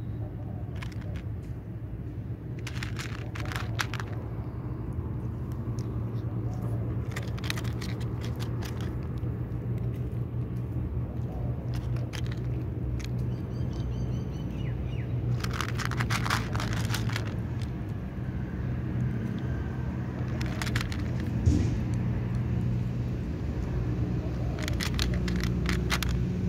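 Egyptian Mau cat crunching dry kibble from a plastic plate, the chewing coming in short bursts of crisp clicks every few seconds, over a steady low rumble.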